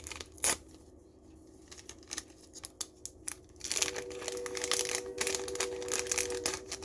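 Packaging crinkling and rustling as a mailed item is unwrapped and handled, a few sharp crackles at first, then dense crinkling from about four seconds in.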